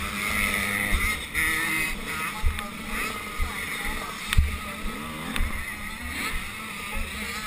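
KTM 85 dirt bike's small two-stroke engine running at low revs with a few short changes in pitch, heard close on the bike, with irregular low thumps and clicks.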